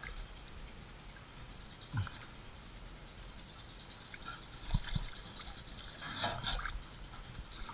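Light splashing and dripping of shallow pond water as a landing net and a hand move through it, with two soft knocks before a short spell of splashing near the end.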